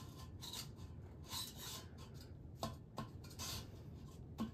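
Faint scraping and rubbing with a few light knocks as a toilet bowl is shifted and rocked on the floor over its closet bolts.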